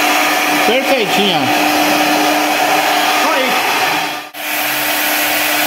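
CNC wood router and its dust extraction running, a loud steady whooshing hum with a constant tone beneath it. The sound drops out for a moment about four seconds in and comes back with a lower hum.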